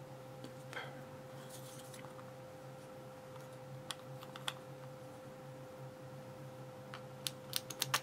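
Faint scattered clicks and taps of an ASSA Ruko 2 padlock cylinder being handled while its plug is pushed out with a plastic plug follower. A quick run of clicks comes near the end, over a steady faint hum.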